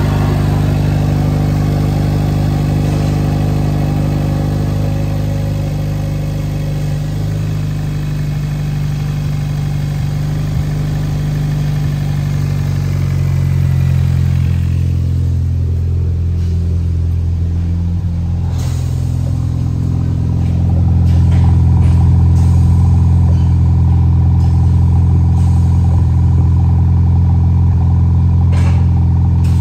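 2013 Hyundai Veloster's 1.6-litre Turbo GDi four-cylinder engine idling steadily. It is heard first at the open engine bay and then at the twin centre exhaust tips, where the low exhaust note gets louder about two-thirds of the way in.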